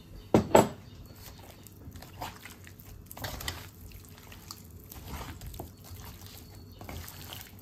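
Wet squelching and slapping of a hand mixing chicken pieces into a sticky gram-flour and flour batter in a steel bowl. It is irregular and continuous, with two loud sharp sounds about half a second in.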